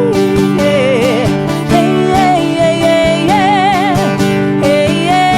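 Sertanejo song with strummed acoustic guitars under a wavering melody line; no words are sung at this point.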